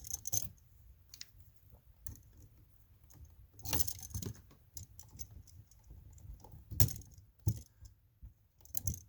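Scattered small metallic clicks and rattles of hand tools, wire and an electrical outlet being handled while a wire is hooked onto the outlet's terminal screw, with louder clacks about 4 and 7 seconds in.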